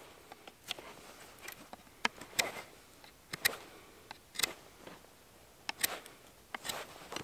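Knife blade shaving a small stick of dry wood in short scraping strokes, roughly one a second.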